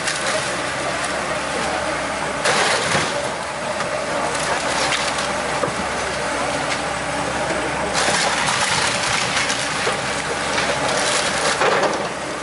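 Kobelco hydraulic excavator demolishing a wood-frame house: timber, roofing and walls splintering and crashing down over the machine's running engine. The crashes are loudest about two and a half seconds in and again around eight seconds.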